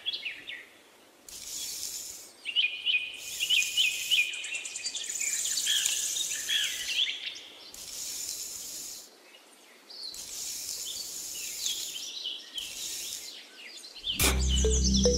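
Birds chirping and tweeting in quick, high, repeated calls, with short bursts of hiss between them. Music comes in near the end.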